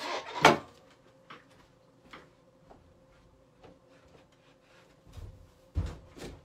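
Scattered clicks and knocks of a person moving about a small room, with a louder knock about half a second in and two more near the end, over a faint steady hum.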